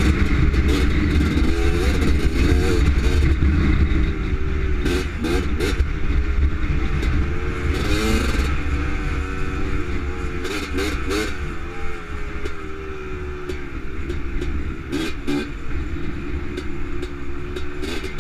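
Honda TRX250R's two-stroke single-cylinder engine running under load on a dirt trail, its pitch rising and falling as the throttle opens and closes. Wind buffets the microphone as a low rumble, and short knocks and clatter come from the quad over rough ground.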